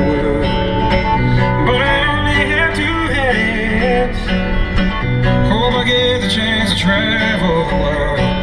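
Background music: a song with a singing voice over guitar, playing steadily.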